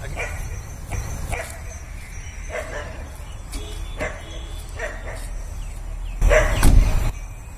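Dog barking on and off, short separate barks about once a second, over a steady low rumble. A louder noise lasts nearly a second about six seconds in.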